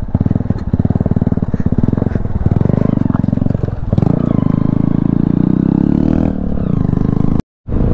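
Motorcycle engine running at low revs with a steady pulsing beat. The revs rise about four seconds in and ease off again near six seconds. The sound cuts out for a moment near the end.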